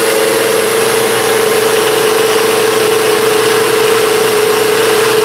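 NutriBullet blender motor running steadily at full speed, grinding dry rolled oats into oat flour, with a steady whine over the grinding noise.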